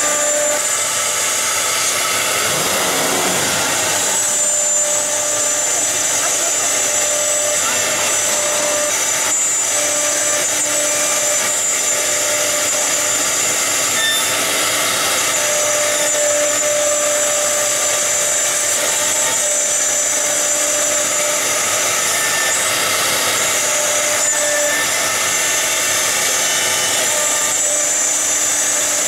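YM4 1325 four-spindle CNC wood router cutting particle board: a steady high-pitched whine of the spindles with cutting noise from the bits.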